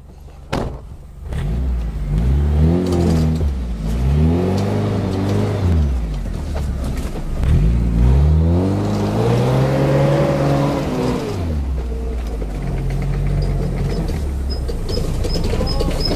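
Engine of a modified Suzuki Escudo 4x4 off-roader being revved hard in bursts while bogged in mud on a winch line. The pitch rises and falls twice in quick succession and then in one longer pull, before settling to a steadier lower note near the end. A single knock comes just before the revving starts.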